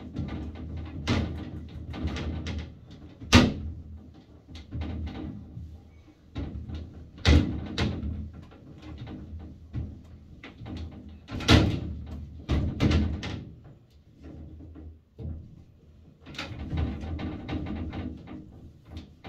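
Glass shower enclosure panels rattling and knocking in their frame while being wiped with a cloth, with rubbing between irregular knocks and a few louder bangs.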